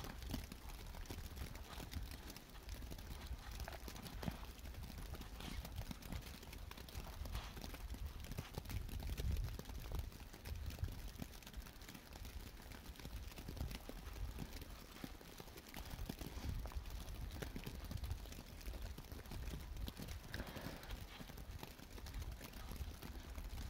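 Gusting wind rumbling on the microphone, with scattered small knocks and ticks throughout.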